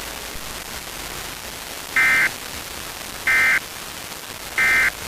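Emergency Alert System end-of-message (EOM) data bursts: three identical short raspy buzzes of SAME digital code, each about a third of a second long and about 1.3 seconds apart, starting about two seconds in. They signal the end of the alert. Under them is a steady static hiss.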